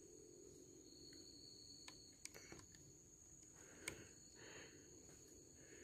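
Near silence with a faint, steady high-pitched insect drone and a few faint small clicks.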